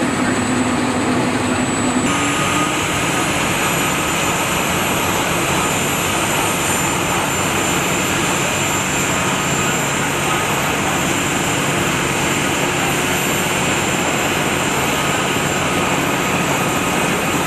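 Aircraft turbine engine running steadily: a dense, loud rush with a thin high whine on top. For the first two seconds a lower engine hum sits underneath.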